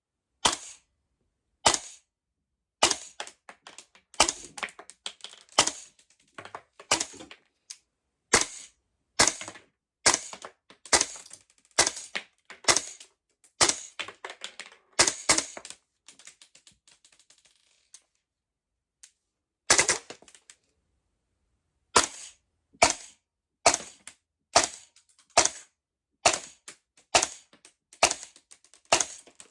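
Gas blowback airsoft gun fitted with a Noveske KFH muzzle device, fired in single sharp shots roughly a second apart. There is a pause of about three seconds after about 16 s, with faint rattling, and the shots come quicker near the end.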